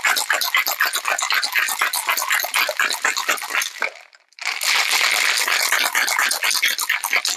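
Ice cubes rattling inside a cocktail shaker that is being shaken hard and fast. The shaking stops for a moment about four seconds in, then starts again.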